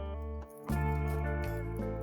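Background music playing sustained chords, with a brief dip about half a second in before a new chord comes in.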